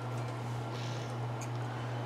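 Steady low electrical-type hum, with light handling noise from a small razor saw and plastic or photo-etch parts on a cloth-covered cutting mat: a short soft scrape a little under a second in and a faint tick about halfway through.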